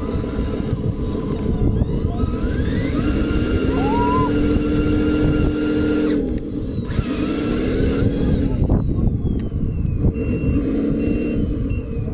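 Radio-controlled excavator's electric motors and gearing running with a dense grinding whine, the pitch rising, holding and falling as the motors speed up and slow down. Short repeated beeps come near the end.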